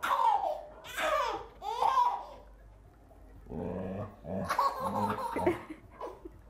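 Baby laughing in short, repeated bursts of giggles and squeals.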